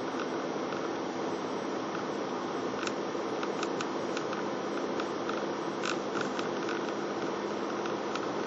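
Steady road and engine noise inside a moving car, with a low steady hum and irregular light ticks or rattles through the middle of the stretch.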